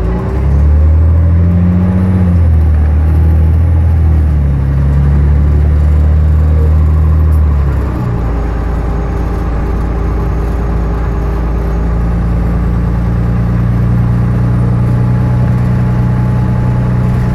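Cummins ISL diesel engine of a 2006 New Flyer D40i transit bus, heard from inside the passenger cabin, pulling as the bus gets under way. The engine note rises and then steps down several times as the Allison B400R5 automatic transmission shifts up.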